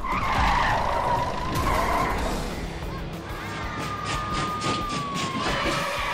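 Police car siren sound effect wailing, with one long held note that slides slowly down in the middle before the wail returns.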